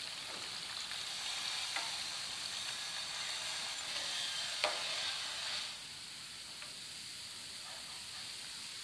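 Bread vadas deep-frying in hot oil, a steady sizzle, while they are lifted out of the pan with a slotted steel spoon. A single sharp click comes about halfway through, and shortly after it the sizzle drops a little in level.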